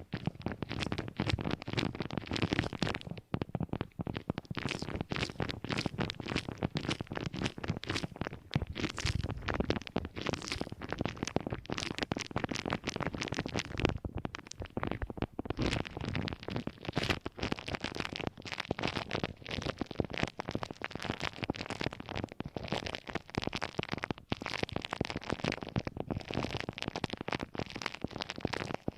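Close-miked object handling for ASMR: a dense, continuous run of fast crackling and scratching sounds.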